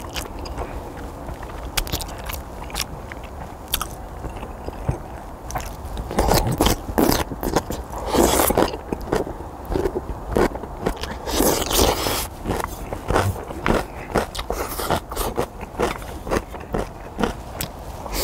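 Close-miked eating of spicy ramen mixed with Chapagetti noodles: chewing and biting with many sharp clicks and scrapes, louder from about six seconds in, with longer rushing bursts around eight and twelve seconds in.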